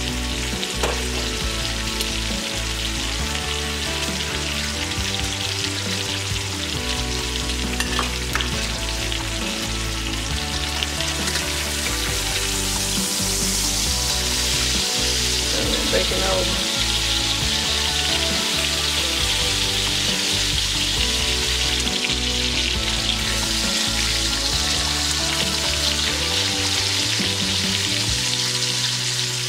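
Bacon frying in a nonstick skillet, rendering its grease: a steady sizzle that grows louder about halfway through as the strips are lifted and turned with a utensil. A few light clicks come early on.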